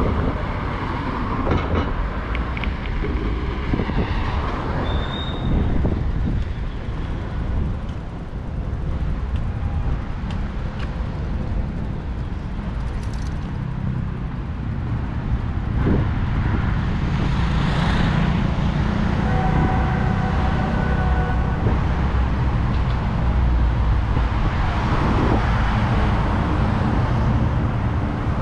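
Road traffic passing on a busy city avenue: a steady low rumble of engines and tyres that grows louder about halfway through, with a brief thin whine from a passing vehicle near the two-thirds mark.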